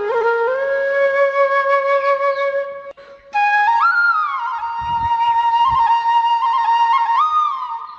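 Background flute music: a slow melody of long held notes with sliding pitch bends, breaking off briefly about three seconds in before a new phrase begins.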